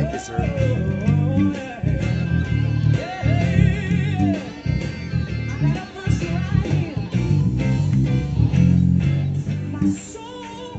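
Electric bass guitar plucked by hand, playing a gospel bass line, with a singing voice and other music over it.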